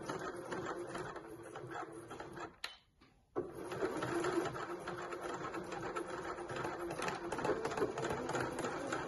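Janome sewing machine stitching back and forth through folded webbing, stopping for about half a second around three seconds in, then stitching again.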